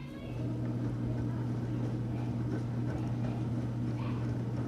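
Enxuta Luxo Soft washing machine running, its motor giving a steady low hum that dips briefly at the start and then holds.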